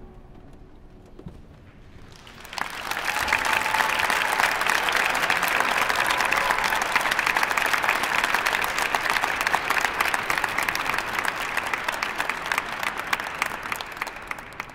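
Audience applause: after a short lull, many people start clapping about two and a half seconds in, and the dense clapping holds steady.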